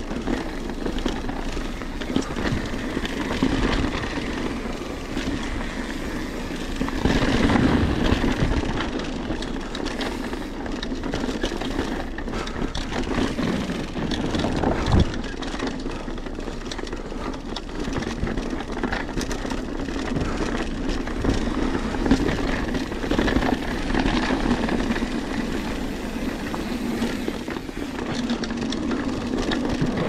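Mountain bike ridden along a dirt forest singletrack: a steady rush of tyre and wind noise with the bike rattling over the ground, and a sharp knock about halfway through.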